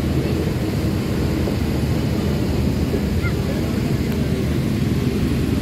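Steady low rumble of a passenger train rolling along the track, heard from on board: wheels on the rails and the carriage running, with the train moving again after a halt just short of the station.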